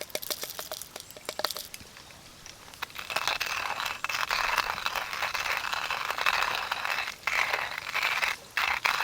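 Crinkling, rustling handling noise, like nylon or plastic being crumpled and moved, starting about three seconds in and broken by two short pauses near the end. Before it, a run of quick, regular clicks dies away.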